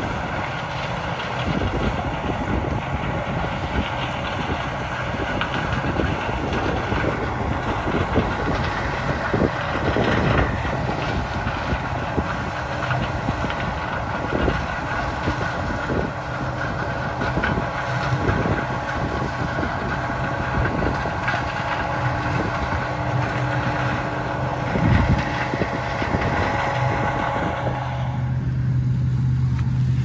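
Farm machinery engine running steadily, a rough low rumble with a whine of several steady tones over it. About two seconds before the end it changes to a lower, smoother hum.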